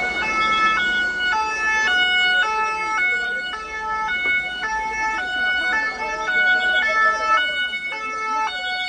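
Two-tone vehicle siren, switching back and forth between a high and a low note about every half second.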